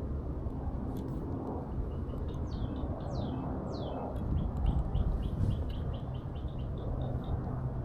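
A bird calling: a few sharp down-slurred notes about two seconds in, then a quick run of short repeated chirps, about five a second, that stops near the end. A steady low rumble runs underneath.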